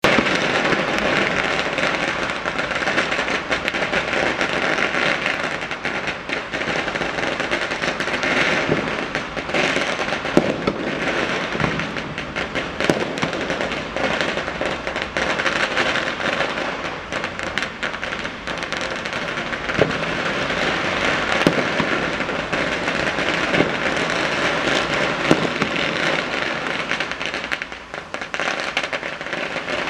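A long string of Chinese firecrackers going off in a continuous, rapid crackle of bangs, with a few louder single reports and a short lull near the end.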